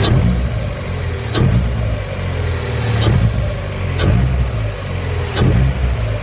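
Mazda MX-5 1.8 inline-four, fitted with a cold-air induction kit, blipped from idle about five times. Each blip starts sharply, and the revs rise and fall back.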